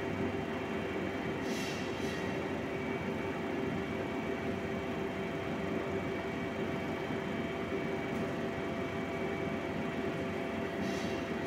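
Old electric-motor-driven rotary clamp carrier for gluing wooden boards, turning its clamp beds: a steady mechanical running noise with a couple of steady tones in it. Two brief hisses, about a second and a half in and near the end.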